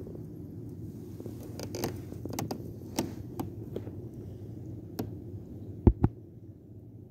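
Kayak paddling: scattered light clicks and splashes from the paddle over a steady low rumble, then two loud knocks close together about six seconds in.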